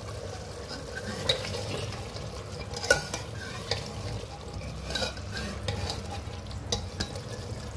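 A metal ladle stirring thick mutton stew in an open pressure cooker, clinking sharply against the pot several times, over the steady sizzle of the stew cooking down to dry off its extra water.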